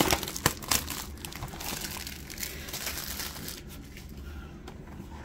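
Clear plastic shrink wrap crinkling as it is torn and crumpled in the hand, with many sharp crackles in the first couple of seconds, then softer rustling that dies down after about three seconds.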